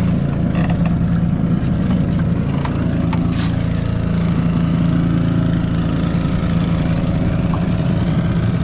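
Boat's petrol outboard motor running steadily at an even low pitch, with a few light knocks about half a second and three and a half seconds in.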